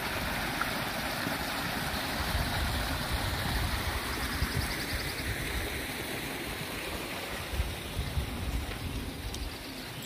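Small waterfall splashing over mossy rocks: a steady rush of falling water that eases slightly in the second half.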